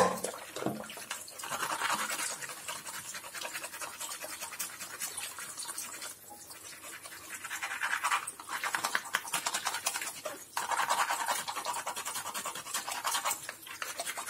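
Two green-lipped mussel shells rubbed hard against each other in quick scrubbing strokes under a running tap, scraping debris off the shells. The scrubbing comes in spells, with brief lulls about six and ten seconds in.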